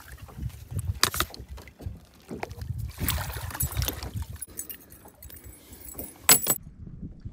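Knocks, clicks and a metallic jingle of handling a just-caught bass and a spinnerbait on a plastic kayak deck, over a low rumble of wind on the microphone. The sound changes abruptly about six and a half seconds in.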